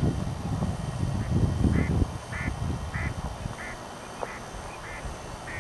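A duck calling in a steady series of short calls, about one every half second, starting about a second in. Wind rumble on the microphone is strongest in the first two seconds.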